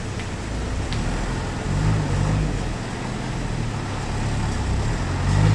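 Sawmill's engine running steadily with a low hum, swelling briefly about two seconds in and again near the end.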